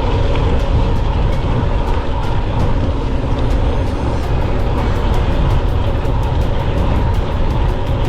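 Wind rushing over the microphone and tyre rumble from a mountain bike riding at speed on a dirt trail. A fast, regular ticking comes in from about halfway through.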